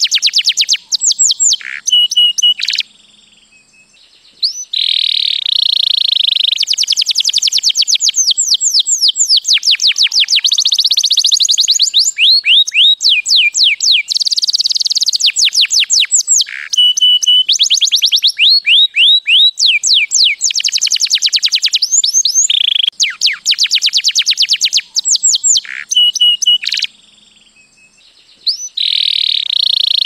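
White canary singing: long, high-pitched phrases of rapid repeated trills, with short pauses about three seconds in and again near the end.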